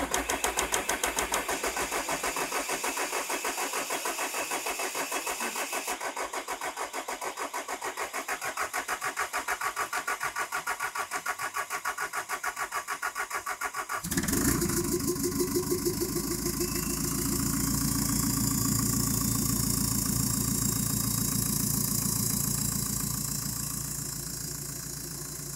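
Hyundai D4CB 2.5-litre four-cylinder common-rail turbodiesel cranking on its starter with a steady rhythmic churn for about fourteen seconds. It then fires and settles into a steady idle. This is the engine's first start after a cylinder head gasket repair.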